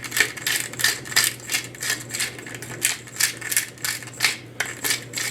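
Pepper mill grinding black pepper: a rapid, even run of crunching clicks, about four to five strokes a second.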